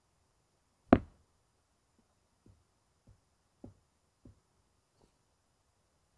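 A cat toy being slapped down onto a carpeted floor: one sharp thump about a second in, then four much fainter taps about half a second apart.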